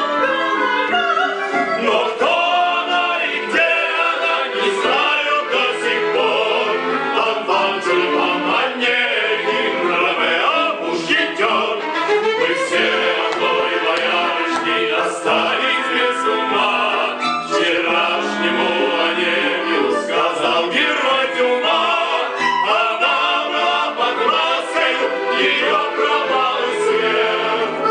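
Singers performing a musical-theatre number, accompanied by a live orchestra.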